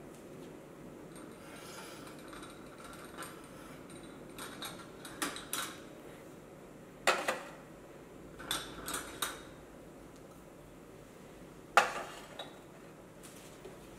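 Ceramic espresso cups clinking and knocking as they are handled and set down on the espresso machine's drip tray, a scattered string of sharp clinks, the loudest about halfway through and again near the end.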